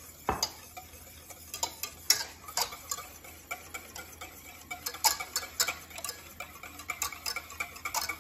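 Wire balloon whisk beating mayonnaise by hand in a stainless steel pot, an irregular run of clicks and taps as the wires strike the metal sides.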